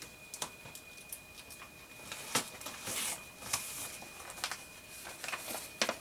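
Paper and an envelope being handled: light rustles and small clicks and taps, the loudest rustles about two and a half, three and three and a half seconds in and again near the end.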